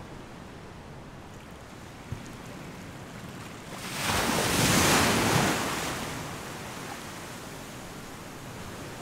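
Seawater washing around the pier pilings as a steady hiss. About four seconds in, a wave surges up loudly and fades away over about two seconds.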